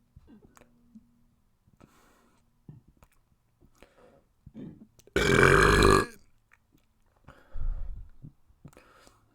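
A person burps loudly once, a long pitched burp lasting just under a second, about five seconds in. A shorter, quieter burp follows about two seconds later, with faint mouth clicks in between.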